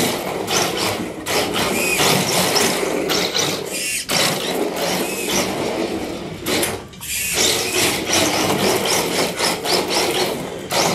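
Electric RC drift car running hard: its motor and gears whine in rising and falling revs while its hard drift tyres scrub and clatter across a hardwood floor. The sound drops away briefly about four seconds in and again around seven seconds.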